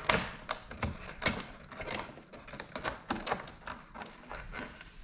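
Hands fitting a wickerbill onto a Corvette rear spoiler: a run of small, irregular clicks and taps as the parts are pressed and positioned.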